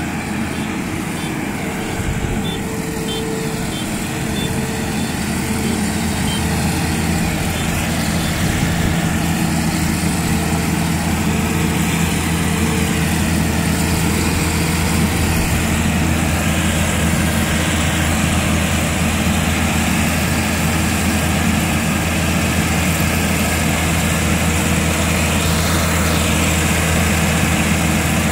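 Kubota DR120 rice combine harvester running while it cuts rice, a steady engine hum with the clatter of the machinery. It grows louder over the first ten seconds or so as the harvester comes closer, then holds steady.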